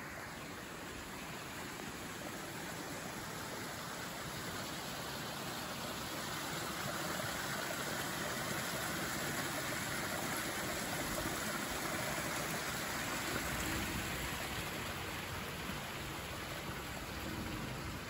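Hot spring water running and splashing through a rocky channel: a steady rushing that swells louder midway, then eases a little near the end.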